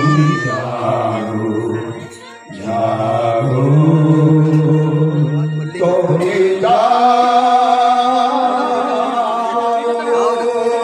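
A group of men chanting a Hindu devotional mantra together into microphones. About two-thirds of the way through, the chant settles into one long held note.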